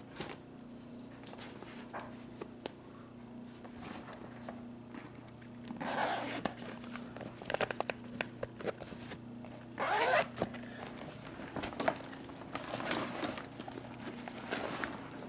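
Zipper on a soft-shell fabric suitcase being pulled, with two longer zips about four seconds apart, amid handling clicks and rustles over a steady low hum.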